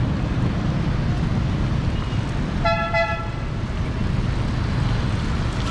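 Steady low rumble of wind and street traffic on the microphone while cycling, with one short vehicle horn toot a little before the middle.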